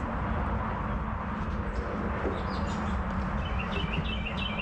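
Steady low background rumble with a faint constant hum. Near the end a bird chirps in a quick run of short, high repeated notes.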